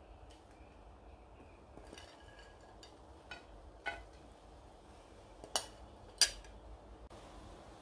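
A metal spoon clinking against dishes as a topping is spooned onto a salad: a handful of light, sharp clinks, the two loudest a little past halfway.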